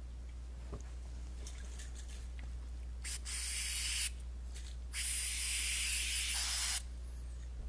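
Aerosol can spraying in two bursts: a short hiss of about a second, then after a brief pause a longer one of about two seconds. A few faint clicks come before them.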